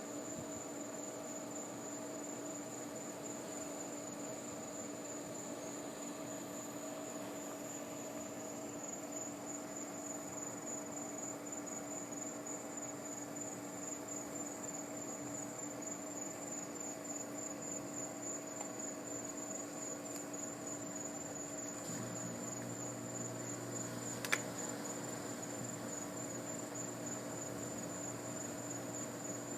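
Night insects calling continuously in a high, finely pulsing trill, over a steady low hum. A single sharp click about 24 seconds in.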